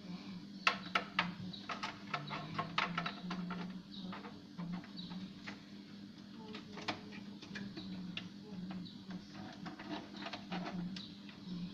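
Irregular small clicks and taps, like parts and tools being handled on a workbench, over a steady low hum.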